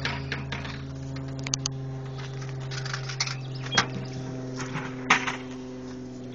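A few sharp clicks and clinks at a parking pay station as it is fed, the loudest about a second and a half, nearly four and about five seconds in, over a steady low hum.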